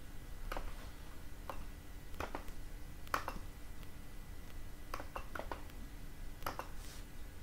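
Scattered clicks from a computer mouse and keyboard, about a dozen over several seconds, some in quick pairs, over a faint steady hum.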